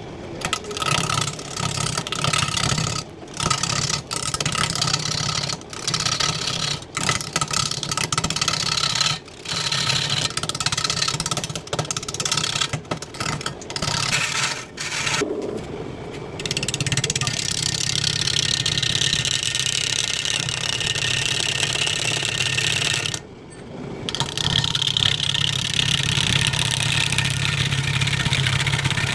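An electric woodworking power tool running on wood. For the first half it is switched on and off in short bursts with brief stops; after that it runs in longer stretches, with one pause.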